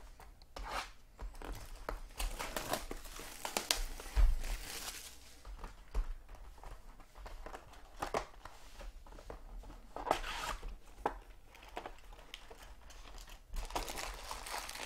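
Plastic wrapper and cardboard of a 2015 Topps football jumbo box crinkling and tearing as the box is unwrapped and its lid flaps opened, in irregular rustles with clicks. There is a thump about four seconds in.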